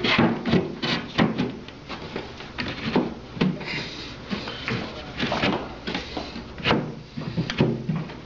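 Wooden cabinet panels knocking and rubbing as a panel is slid and pushed into a dado groove, with many irregular clunks.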